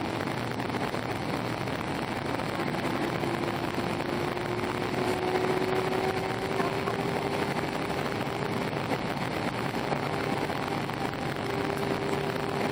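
Airbus A319 cabin noise in flight: a steady rush of airflow and jet-engine noise. Through it runs an engine hum whose pitch rises slowly.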